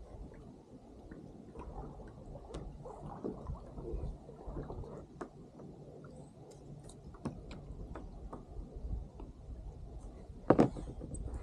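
Water lapping and gurgling against a kayak hull, with scattered small clicks and knocks of gear on the kayak, and one sharp, louder knock near the end.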